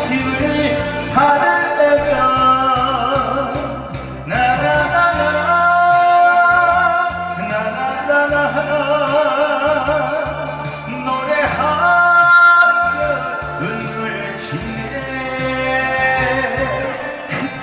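A man singing into a microphone with heavy vibrato over a backing track with a steady bass line, heard through a PA system.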